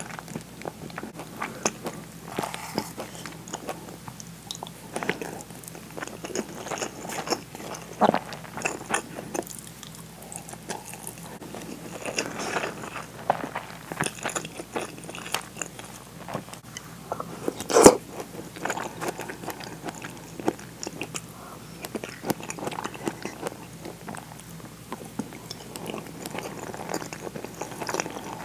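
Person chewing and biting food, with irregular wet mouth noises and small clicks throughout. A single sharp click stands out about 18 seconds in.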